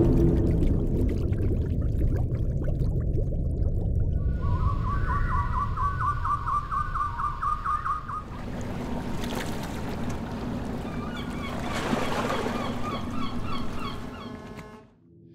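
A goose honking in a quick run of repeated calls for a few seconds, over a steady rushing background noise.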